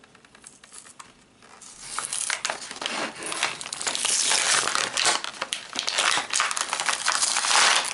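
Clear plastic blister packaging crinkling and crackling as it is pried and peeled off its cardboard backing. It starts about two seconds in and gets louder about halfway through.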